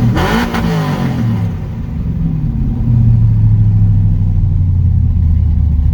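Cammed, straight-piped LS V8 in a Chevrolet Silverado running after a cold start: a quick throttle blip at the start, revs falling back over the next second or so, then a louder, steady low idle from about three seconds in.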